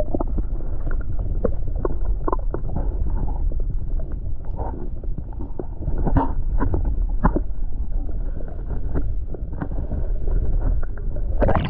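Wind buffeting the microphone, a steady low rumble, with scattered light splashes of water.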